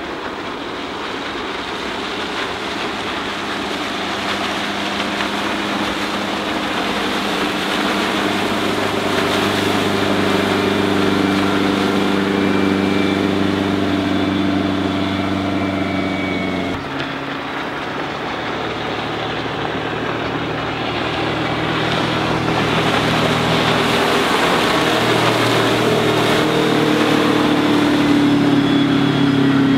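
Bayliner 192 Cuddy's MerCruiser 3.0-litre four-cylinder sterndrive running at planing speed, a steady engine drone growing louder as the boat passes. The tone shifts abruptly to a lower pitch a little over halfway through, then builds again.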